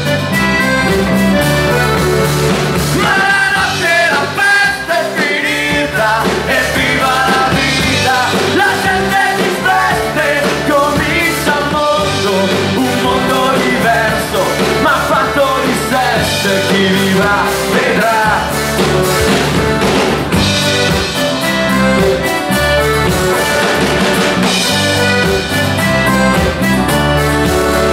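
A live band playing through a stage PA: strummed acoustic guitars, accordion and a drum kit keep a steady rock beat. It is a stretch between sung lines, with a wavering melody line over the band and at most some voice from the singer.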